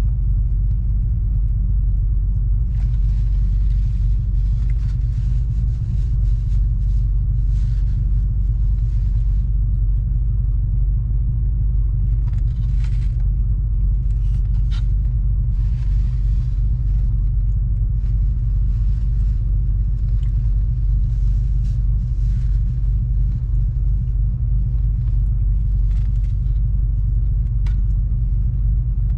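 Steady low rumble of a parked pickup truck idling, heard from inside the closed cab, with faint crinkles of a food wrapper now and then as someone handles and eats a sandwich.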